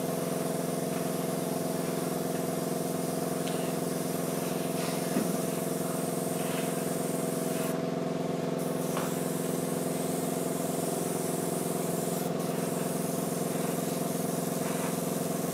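An airbrush with a 0.3 mm nozzle sprays undiluted chipping fluid in a steady hiss, over the constant hum of an air compressor. The undiluted fluid spits from the nozzle and lays down fine droplets.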